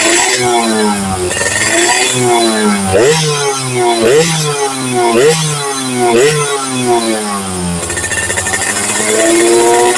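Yamaha F1ZR two-stroke motorcycle engine revved in repeated throttle blips, about one a second, the pitch jumping up and sinking back each time, settling to a steadier speed near the end.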